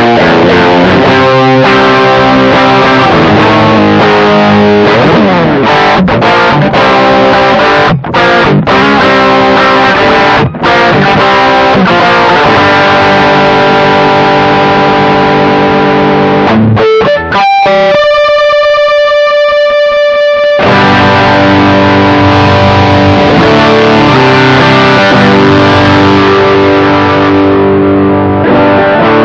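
Overdriven electric guitar, a 1983 Japanese Aria Pro II played through a Caline Orange Burst overdrive pedal (a BB Preamp clone) and a Joyo California amp-sim, playing chords and riffs. About two-thirds through, a single high note rings on alone for a couple of seconds before the riffing resumes.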